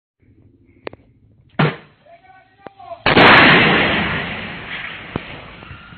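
Combat gunfire: a few sharp shots in the first two seconds, then about three seconds in a heavy blast, like an artillery round or explosion, whose boom rolls away slowly over the next few seconds.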